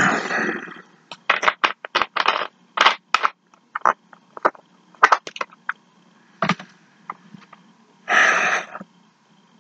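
Paper fast-food wrapper crinkling and crackling as it is handled, in many short, irregular bursts with a longer rustle near the start and another about eight seconds in.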